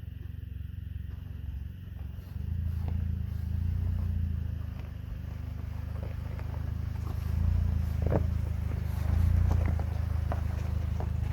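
Car driving along a rough road, heard from inside: a steady low engine and road rumble that grows louder about two seconds in, with scattered knocks and rattles from bumps in the second half.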